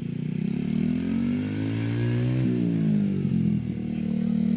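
Child's mini chopper motorcycle running across the grass, its pitch climbing to a peak about halfway through and then falling back.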